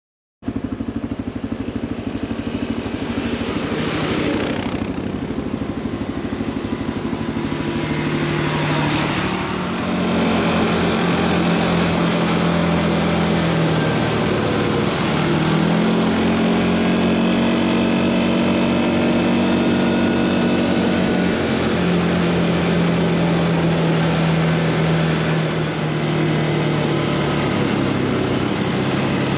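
ATV engine running under way, its pitch dipping and then climbing again about halfway through as the throttle eases and opens. The sound starts abruptly about half a second in.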